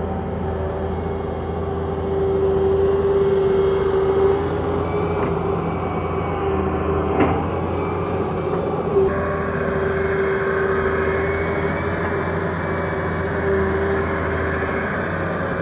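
Wheeled excavator's diesel engine running steadily under digging load, with a held tone over the engine hum as the bucket digs and swings soil. A couple of sharp knocks come about five and seven seconds in, and the engine note turns harsher about nine seconds in.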